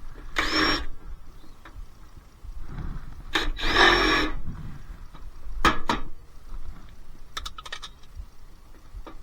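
Power driver spinning up in two short bursts, about half a second and three and a half seconds in, backing out star-head screws from a dishwasher door, with light clicks and taps of screws and metal in between.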